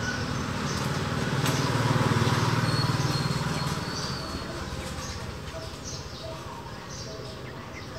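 A vehicle passing by, its low rumble swelling about a second in and fading away by the middle, over background ambience with small birds chirping.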